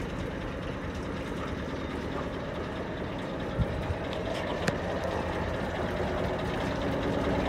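Yanmar inboard marine diesel engine running steadily, with a few light clicks about halfway through.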